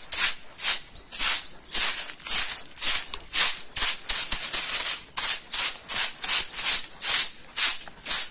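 A broom sweeping bare dirt ground in quick, even strokes, two to three scratchy swishes a second.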